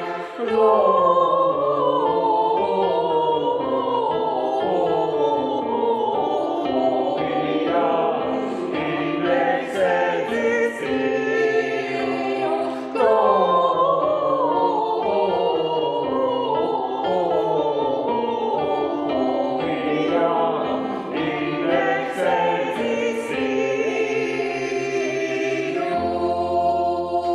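Staff choir singing a Christmas piece in several voice parts, with repeated falling melodic phrases. Near the end it settles onto a long held chord.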